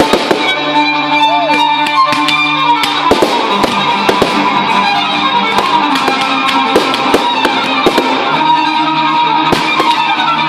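Music with held string-like tones playing loudly, with many sharp fireworks bangs and crackles going off irregularly throughout.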